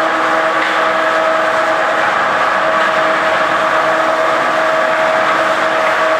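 A machine running steadily, with a constant hum-whine at a fixed pitch over a loud even hiss.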